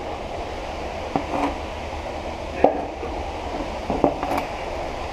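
Knocks and scuffs of a person moving through a narrow tunnel, a handful of sharp knocks with the loudest about two and a half seconds in, over a steady low rumble.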